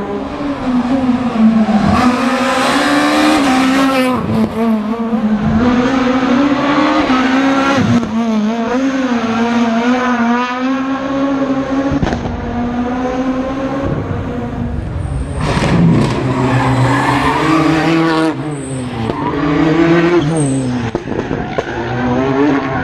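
Rally car engine driven hard on a stage, revving up and down over and over with quick breaks at each gear change.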